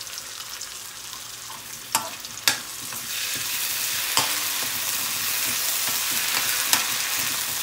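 Garlic, onion and crab paste sizzling in hot oil in a metal wok, the sizzle growing louder about three seconds in as the paste is stirred in. A few sharp clinks of the spoon and spatula striking the pan break through the sizzle.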